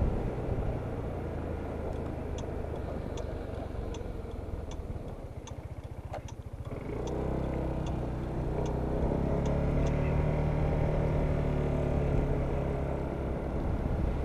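Single-cylinder engine of a Kymco Downtown 300i scooter running underway, with road and wind noise, easing off about six seconds in and then picking up again to a steady hum. Through the middle, a light tick repeats about every three-quarters of a second.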